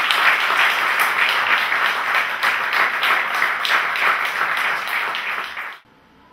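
Audience applauding: dense, steady clapping from many hands, which cuts off suddenly near the end.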